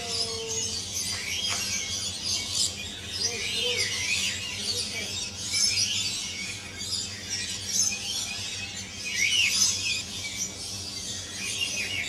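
Flock of rainbow lorikeets chattering: many short, shrill, high-pitched calls overlapping one another in quick clusters.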